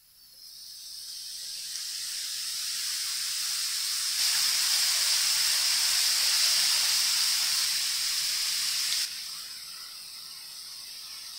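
Diced apples sizzling in a nonstick frying pan: a steady hiss that swells over the first few seconds, jumps louder about four seconds in, and drops back suddenly about nine seconds in.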